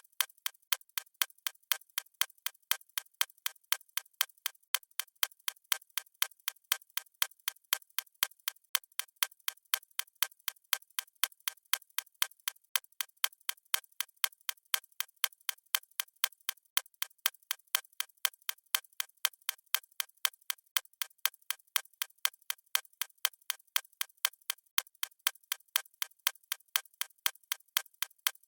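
Clock ticking sound effect of a countdown timer: crisp, high-pitched ticks at an even pace of about two a second.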